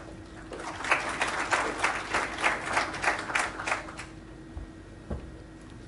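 Audience applauding, starting about half a second in and dying away at about four seconds. A couple of faint low thumps follow.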